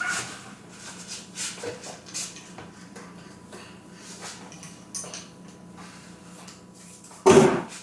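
Bottles and jars clicking and knocking as they are handled and set down, over a faint steady hum, with one louder noise near the end.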